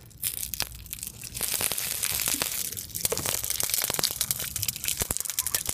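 Water poured from a plastic bottle onto the burnt, melted plastic housing of an electric leaf blower, crackling and hissing as the smouldering embers are doused.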